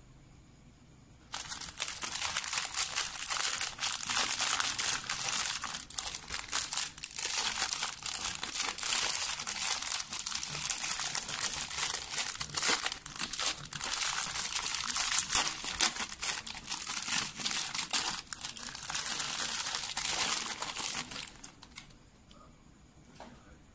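Thin clear plastic bag crinkling and crackling as hands open it and work a Beyblade spinning top out of it. It is a dense, busy crackle that starts about a second in and stops near the end.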